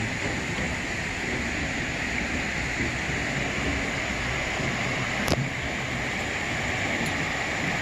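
Mountain stream water rushing steadily over rocks, with a single sharp click about five seconds in.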